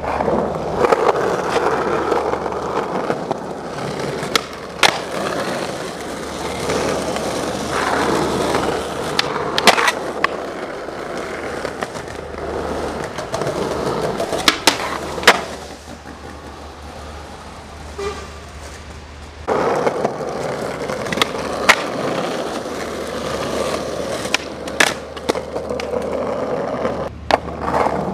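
Skateboard wheels rolling over rough pavement, with sharp clacks of the board hitting the ground every few seconds. The rolling drops away for a few seconds a little past the middle, then comes back.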